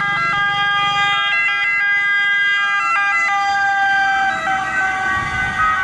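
Italian Red Cross ambulance's siren, sounding steady tones that switch back and forth between pitches in steps.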